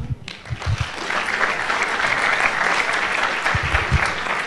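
Audience applauding in a large hall. The clapping builds about a second in and then holds steady, with a few low thumps underneath.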